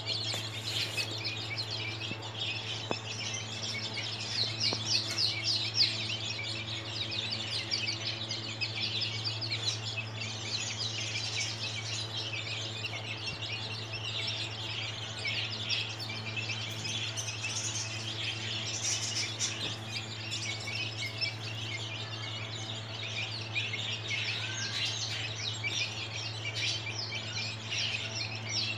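A flock of 13-day-old chicks peeping continuously, many high chirps overlapping with no pause, over a steady low hum.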